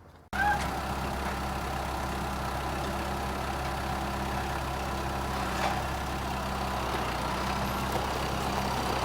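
An engine idling steadily, starting abruptly about a third of a second in.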